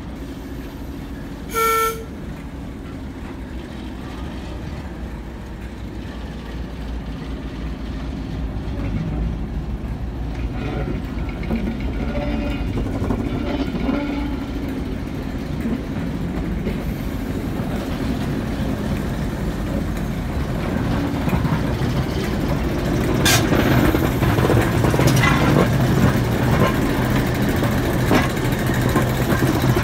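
A short horn toot about two seconds in. Then the diesel engine of British Rail Class 08 shunter 08911 runs steadily and grows louder as it hauls a coach past at low speed, with a few clanks near the end.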